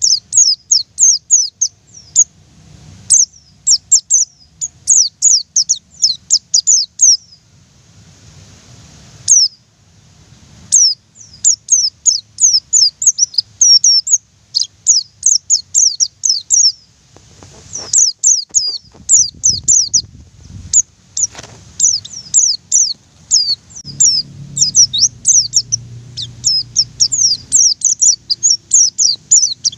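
White-eye (pleci) singing a long, rapid rolling song: strings of quick, high, downward-sliding chirps, several a second, in phrases broken by short pauses.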